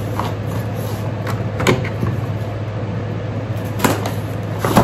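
A cardboard box being handled and cut open with a box cutter: a few short knocks and scrapes, four or so in all, over a steady low hum.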